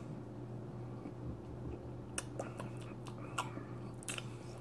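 Soft lip smacks and tongue clicks from a mouth tasting a swallow of fizzy soda: a quick run of sharp clicks about halfway in, then one or two more near the end, over a steady low hum.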